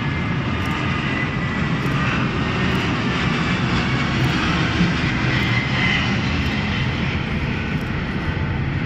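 Airbus A330 twin-jet airliner with Rolls-Royce Trent 700 engines flying low overhead: a steady jet rumble with a faint whine drifting slightly in pitch.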